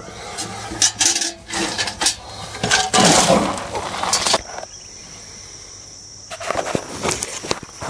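Cattle feeding: irregular crunching, knocks and rustling, loudest a few seconds in, with a steady high chirring of crickets in the quieter stretches.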